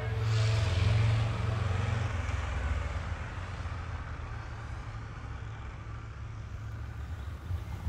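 Triumph Tiger motorcycles' three-cylinder engines running at low speed as the bikes ride slowly. A steady low rumble, loudest in the first couple of seconds and settling a little after.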